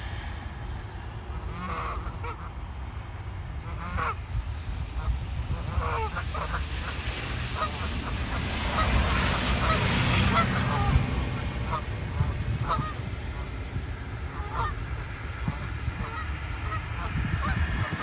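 A flock of Canada geese honking, many short calls overlapping, busiest in the middle, over a steady low rumble.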